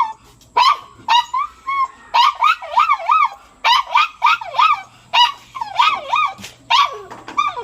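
A dog whining and yelping in a run of short, high calls that slide up and down in pitch, coming in clusters about once a second.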